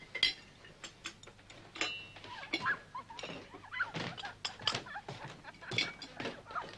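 Light, irregular clinks and taps of china cups, saucers and cutlery at a laid tea table.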